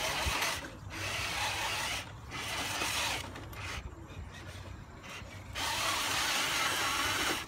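Radio-controlled scale crawler truck's electric motor and gears whirring in throttle bursts as it climbs a steep dirt obstacle, with spells of wheel spin grinding in the dirt. Several short bursts come first, and a longer, louder one near the end cuts off suddenly.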